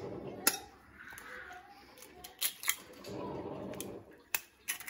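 A knife blade tapping an eggshell to crack it, several sharp clicks spread over a few seconds, with a soft noise as the shell is pulled apart over the bowl of bean paste.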